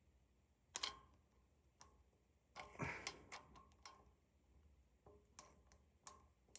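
A dime clicking and scraping in the stiff oscillation adjuster of a 1940s Robbins & Myers table fan as it is twisted by hand: one sharp click about a second in, a cluster of scrapes and clicks around three seconds, then scattered light ticks.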